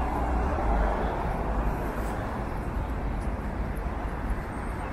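Road traffic on a busy city street: a passing vehicle fades in the first second or so, leaving a steady low traffic rumble.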